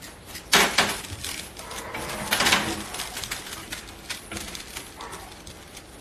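Kittens play-fighting: scuffling and rustling on a fabric mat, with a short louder noisy burst about half a second in and another about two and a half seconds in.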